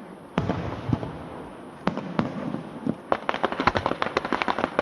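Aerial fireworks exploding: a loud bang about half a second in and two more near the two-second mark, then a rapid run of sharp crackling pops through the second half.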